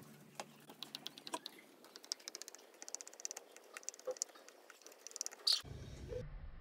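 Small metal utensil scoring carrot halwa in a steel tray, its tip tapping and scraping against the metal in a run of light irregular clicks, with one louder click near the end.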